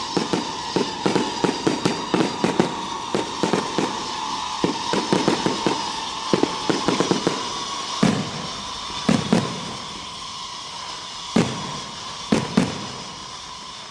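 Fireworks going off in a show: sharp bangs come several a second for the first half, then thin out to a few scattered single bangs in the second half.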